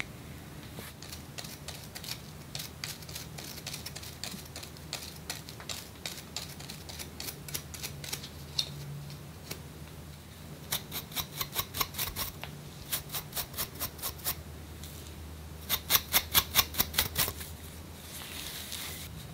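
Scratching strokes on a scalp, lifting dandruff flakes: faint, irregular scratches at first, then three louder runs of rapid strokes, about five a second, in the second half.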